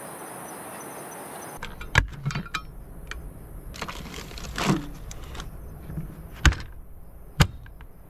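Crickets chirping for the first second and a half, then handling noises as a portable car fridge's lid is lifted and a plastic food container is taken out: sharp clicks and knocks, the loudest about two seconds in and twice near the end, with some rustling in between.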